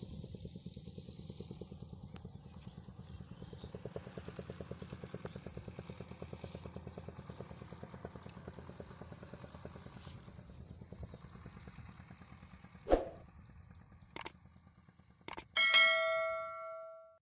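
A small engine runs steadily in the background with a rapid chugging beat, fading out near the end. Then come three sharp clicks and a bell chime that rings out and dies away: the sound effects of a subscribe-button overlay.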